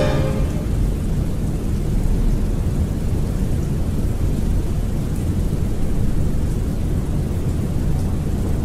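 Rain-and-thunder ambience between tracks: a steady low rumble with a light patter of drops.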